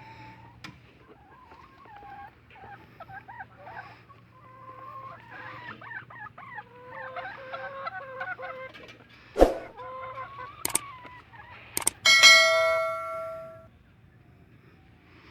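Chickens clucking and calling. About nine seconds in there is a sharp knock, and near the end a loud metallic clang that rings on and fades over about a second and a half.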